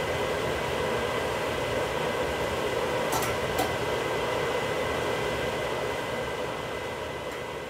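Gas stove burner flame running steadily, a constant rushing hiss, with two light clicks a little after three seconds in; it eases off near the end.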